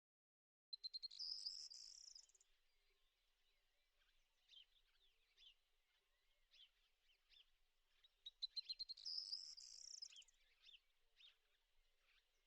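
Songbird singing twice, about seven and a half seconds apart: each song a quick run of high ticks running into a buzzy high trill. Scattered short chirps of other birds sound between the songs.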